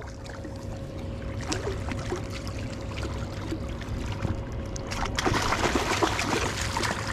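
Water splashing and lapping at a small fishing boat, over a steady low rumble and a faint steady hum; the splashing grows louder and busier about five seconds in.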